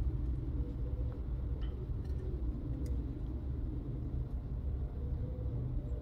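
Steady low background rumble with a couple of faint ticks.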